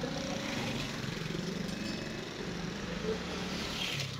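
Small motorcycle engines running steadily as motorcycles ride past close by.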